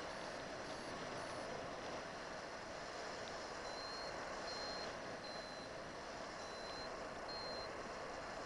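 Steady rush of in-flight wind over the microphone, with a paragliding variometer's short high beeps: faint at first, then from about halfway in a clearer run of beeps roughly every 0.7 s, the climb tone signalling rising air.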